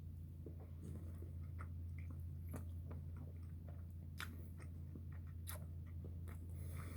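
A person chewing canned sardines in mustard sauce: faint, soft, scattered mouth clicks. A steady low hum runs underneath.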